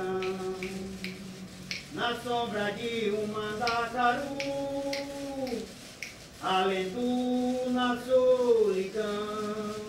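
A man singing a caboclo song in Portuguese, holding long notes that slide from one pitch to the next, with light sharp clicks keeping time.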